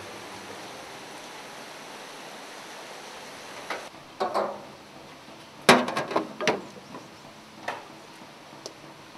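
Dishes and cutlery knocking and clinking in a soapy washing-up sink. The scattered sharp knocks start about four seconds in, and the busiest, loudest cluster comes about six seconds in.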